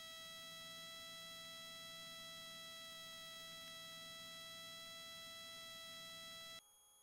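Faint, steady high-pitched electrical whine with a stack of overtones in the cockpit intercom audio feed, over a faint low hum. Near the end it drops suddenly to a quieter, different hum.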